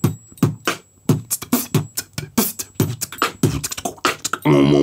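Improvised rhythmic percussion, quick tapped or mouth-made beats about four or five a second, each with a short pitched pop. Near the end a held, sung note begins.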